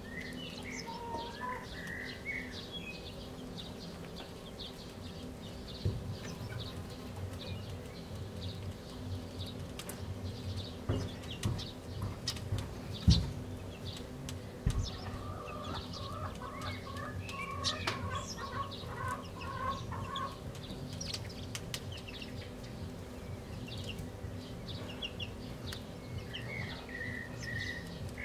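Small songbirds chirping outdoors, with a quick run of notes from about 16 to 20 seconds in and more chirps near the start and end. Scattered clicks and taps throughout, a sharp knock about 13 seconds in, over a faint steady hum.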